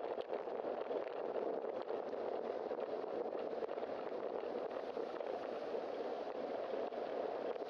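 Steady rush of wind and road noise picked up by a bicycle-mounted camera while riding, with tyre hiss on damp pavement.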